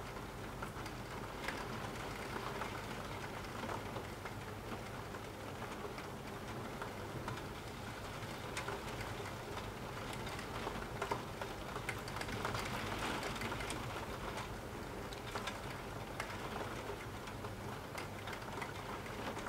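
Steady rain falling, with many separate drop hits heard as short ticks over a continuous hiss.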